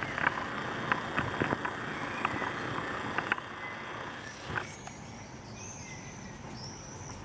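Outdoor ambience: a steady hiss with irregular clicks and knocks through the first half, then a run of high chirps in the second half.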